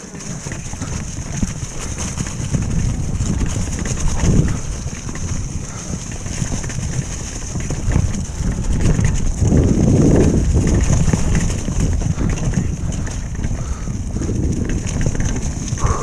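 Retro downhill mountain bike riding down a leaf-covered dirt trail: tyres rolling over dry leaves and roots, the bike clattering over bumps, with wind rumbling on the microphone. It swells louder about four seconds in and again around ten seconds in.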